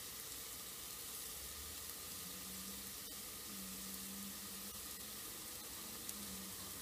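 Chopped onion and garlic frying gently in oil in an aluminium pot: a faint, steady sizzle. A faint low hum comes and goes after about two seconds.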